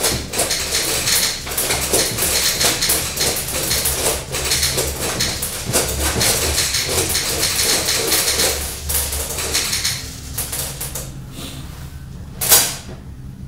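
Beads falling through the pins of a quincunx (Galton board), a dense clatter of many small clicks that thins out toward the end as the beads settle into their columns. One sharp knock comes shortly before the end.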